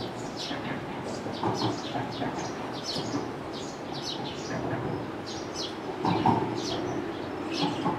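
Small birds chirping, short high chirps that slide downward and come several times a second, over a steady low background rumble, with a brief louder sound about six seconds in.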